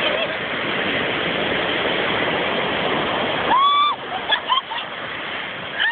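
Surf washing up the beach, a loud even rush of water that drops away suddenly about three and a half seconds in. A woman then gives a high held shriek, followed by a few short squeals and a falling squeal near the end.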